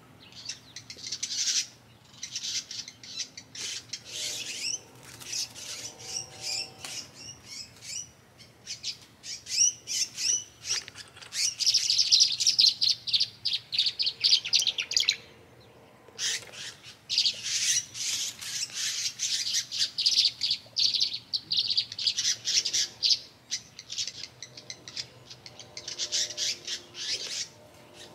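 Small birds chirping and twittering in dense, rapid runs of high calls, with short lulls about two seconds in and again around the middle.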